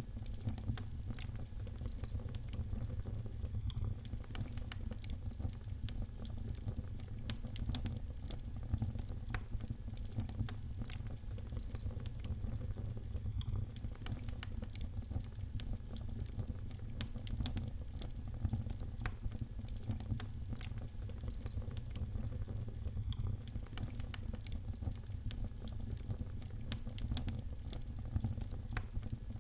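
Fireplace fire crackling, with frequent small sharp pops over a steady low rumble.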